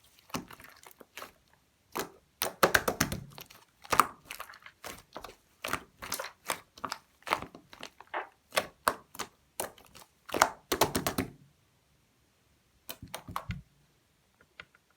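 Slime being pressed and played with by hand, making irregular sharp pops and clicks from trapped air, some in quick runs. The sounds stop for a second or so near the end, then a few more clicks follow.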